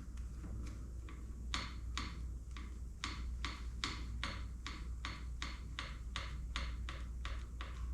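Rapid mechanical clicking, about three to four clicks a second, as a motorcycle clutch cable adjuster is worked to set the lever's free play.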